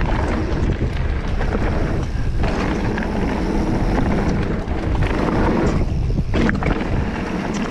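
Wind buffeting an action camera's microphone as a mountain bike rides down a dirt trail, a loud, steady rush with scattered knocks and clatter from the bike rolling over rough ground.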